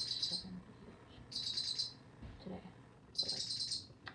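High, trilled chirps repeating evenly about every two seconds, three in all, each lasting about half a second.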